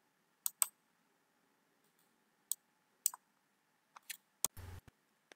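Scattered faint, sharp clicks, about ten of them at uneven intervals, and a short burst of noise about four and a half seconds in.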